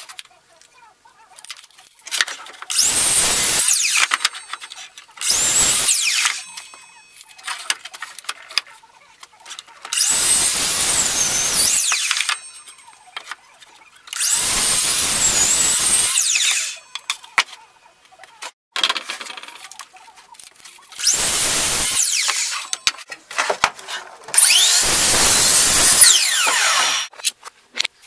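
Compound miter saw crosscutting pallet boards: the saw runs six times for one to two seconds each, its whine rising and falling as the motor spins up and winds down. Between runs there are light knocks of boards being handled.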